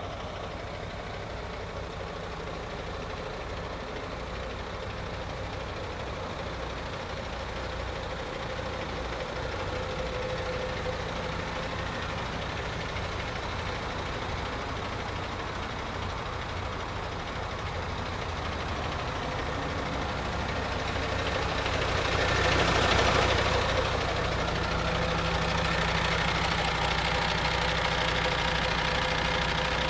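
MAN TGX 26.460's Euro 6 diesel engine, a 12.4-litre straight-six, idling with a steady low hum. About 22 seconds in, a rushing hiss swells briefly, louder than the idle, then settles.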